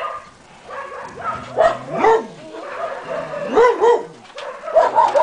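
Dog barking, a series of short barks that rise and fall in pitch, coming in small groups.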